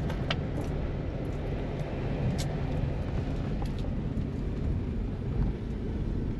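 Steady low rumble of a road vehicle in motion, with a few faint clicks.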